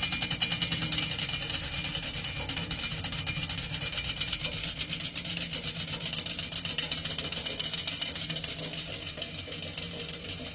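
Box fan with a steel-spoked bicycle rim in place of its blades, coasting down after being switched off: a steady hum with a fast, even ticking that fades slightly toward the end.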